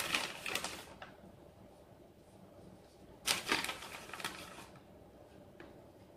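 Two bursts of crisp crinkling and rustling, each about a second long, one at the start and one about three seconds in, as shredded cheese is handled and sprinkled over an unbaked pizza.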